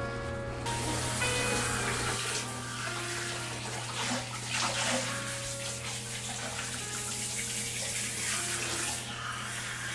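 Water spraying from a handheld low-noise pet shower brush onto a toy poodle's wet coat in a foamy basin. It is a steady rush of spray that starts about a second in, with faint background music underneath.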